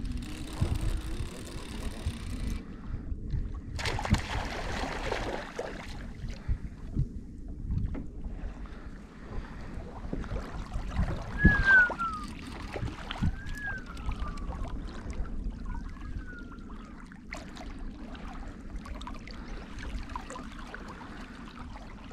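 Water lapping against a fishing kayak's hull, with small knocks from rod and gear handling and wind on the microphone, while a hooked fish is reeled in. Three short falling cries sound around the middle.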